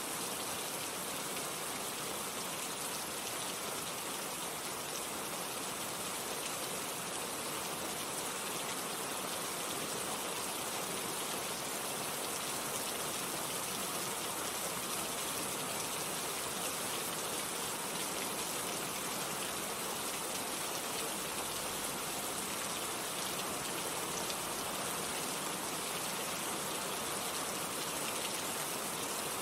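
Steady heavy rain falling, an even hiss of many raindrops pattering on surfaces.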